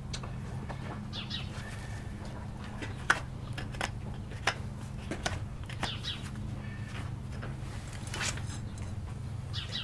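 Small birds chirping now and then, short high calls about a second in, around six seconds in and near the end, over a steady low hum. Scattered sharp clicks and taps run through it, the loudest about three seconds in.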